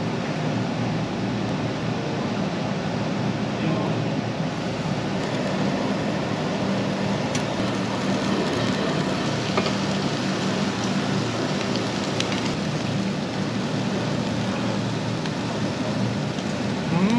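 Pork sizzling on a tabletop Korean barbecue grill: a steady hiss, with a faint low hum underneath.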